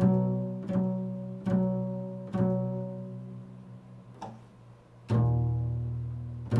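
Double bass played pizzicato: four plucks of the same note, each ringing and fading, then a lower note plucked about five seconds in that rings on.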